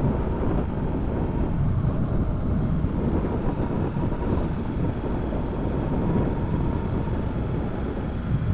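A motorcycle under way: steady engine and road noise, with wind on the microphone.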